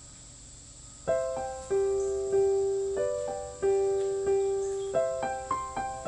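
Solo piano music that starts about a second in, single notes and chords struck one after another at an unhurried pace, each ringing and fading before the next.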